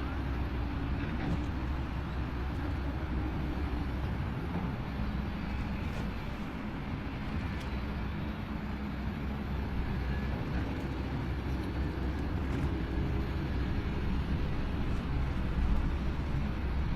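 Heavy earthmoving machine's diesel engine running steadily, a low rumble with a few faint clicks over it.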